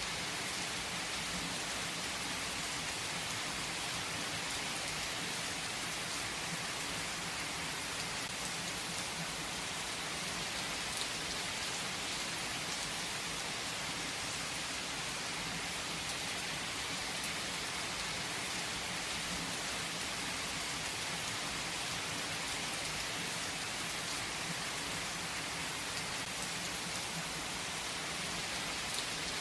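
Heavy rain falling steadily on tree foliage: an even, unbroken hiss of rain with a few faint drop ticks.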